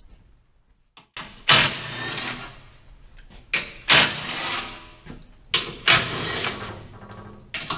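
A few short bursts of a cordless power tool spinning out the 13 mm bolts that hold a car's underbody panel. Each burst starts sharply and lasts under a second. They begin after about a second of silence.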